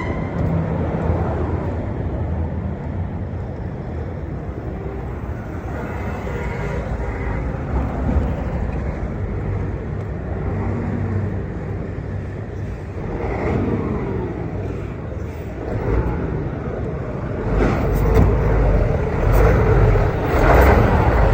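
Road traffic noise: motor vehicles running with a steady low rumble, growing louder over the last few seconds.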